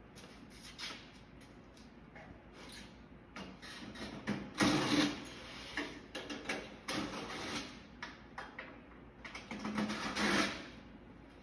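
Irregular clanks, scrapes and rattles of sheet-metal parts and hand tools as an air-conditioning unit is dismantled for scrap, louder about halfway through and again near the end.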